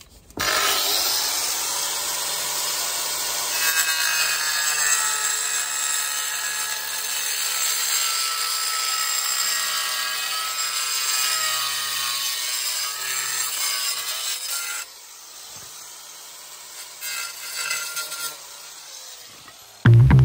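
Angle grinder cutting through a cladding panel to size, its motor whine wavering up and down in pitch as the disc bites. The cut stops after about fourteen seconds.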